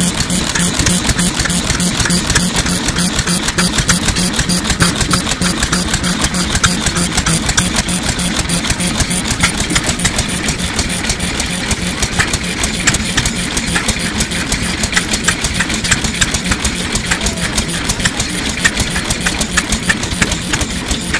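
A circa-1930 Takahashi Works SYOKI 3.5 hp single-cylinder stationary petroleum engine running steadily, with a rapid, even mechanical clatter.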